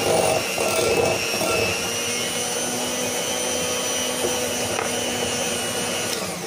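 Electric hand mixer running steadily, its beaters whipping eggs and sugar in a glass measuring cup. The motor cuts off right at the end.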